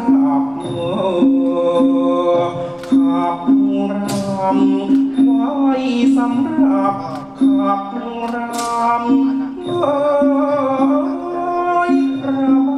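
Thai classical ensemble music accompanying a Khon masked dance-drama: a sustained melody over a strong low line, with sharp percussion strikes every few seconds.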